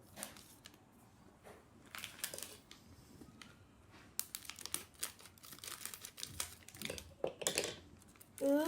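A LEGO minifigure's plastic pack being torn open and crinkled, in irregular bursts of crackling.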